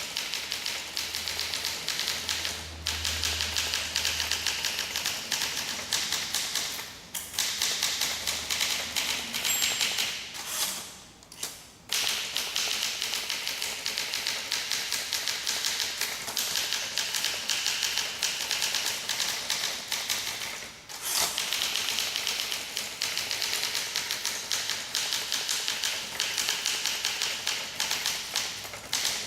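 Olympia SM2 manual typewriter (1958) being typed on: a quick, even run of key strikes clacking against the platen, broken by a few short pauses.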